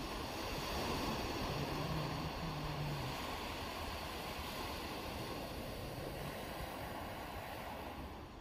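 Steady outdoor wash of sea surf and wind, with a faint low hum about two seconds in.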